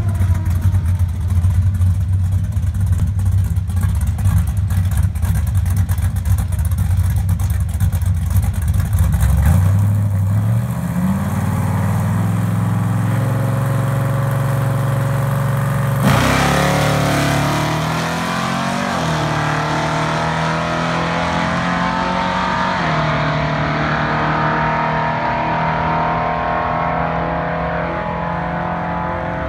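Dodge Dart Sport 340's V8 drag car idling unevenly on the line, then held at raised revs. About sixteen seconds in it launches and accelerates hard down the strip, revving up through the gears with two upshifts and fading with distance.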